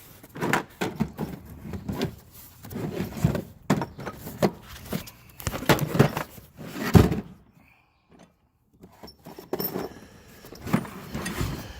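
Metal sockets and tools clinking and knocking as they are handled and moved around in a toolbox drawer, with a heavier knock about seven seconds in and a short pause after it.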